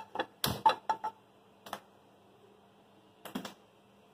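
Metal kitchen pots and utensils clinking and knocking: a quick run of knocks in the first second, the loudest about half a second in, then a single clink and a short cluster of knocks a little past three seconds in.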